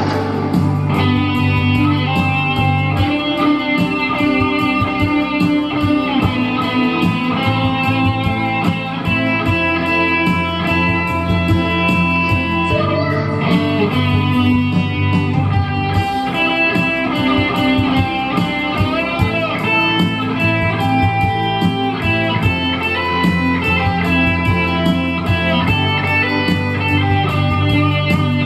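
Instrumental music led by a plucked guitar over a bass line that changes chord every few seconds.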